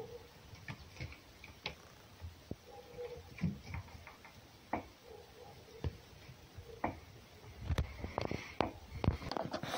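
Irregular light clicks and taps, a few a second, growing denser and louder near the end.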